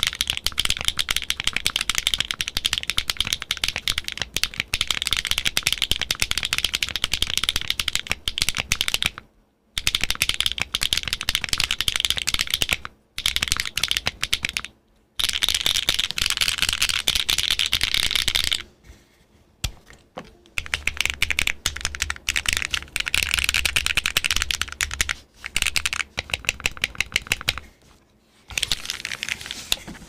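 Fast typing on a gasket-mount Kohaku mechanical keyboard with an aluminum plate, factory-lubed HMX Hyacinth V2U linear switches and GMK keycaps: dense, rapid keystrokes in long runs, broken by a few brief pauses.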